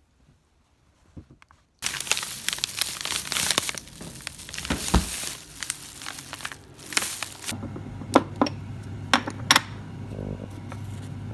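Plastic bags crinkling and rustling as they are handled for about six seconds, then a plastic spoon clinking a few times against a glass salt jar over a steady low hum.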